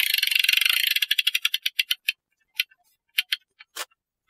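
Ratchet of a mainspring winder clicking as its arbor turns: a fast, continuous run of metallic clicks that slows about a second in to separate clicks, ever further apart, dying out to a last few single clicks.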